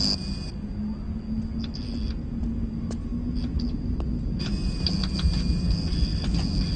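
Keys pressed on an electronic control console: irregular clusters of sharp clicks with a high, thin electronic tone, over a steady low hum. A few single clicks sound in the middle, and a longer run of clicks starts about four and a half seconds in.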